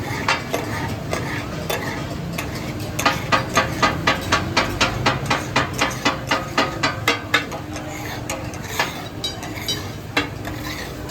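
Metal spatula blades clattering and chopping on a hot iron griddle while goat offal fries and sizzles. A few strikes come early on, then a fast, even run of sharp clangs at about five a second for several seconds, then scattered strikes.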